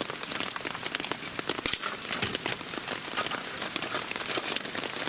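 Rain falling, a steady hiss filled with many irregular sharp drop ticks.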